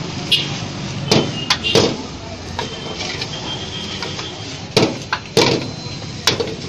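Irregular sharp metal clanks, about seven of them, of a cooking utensil striking a wok as fried rice is cooked, over a steady hum of roadside traffic.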